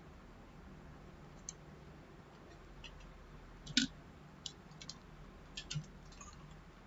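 Scattered, faint clicks from a computer keyboard and mouse, about eight in all and spaced irregularly, the loudest about four seconds in. A faint steady low hum runs underneath.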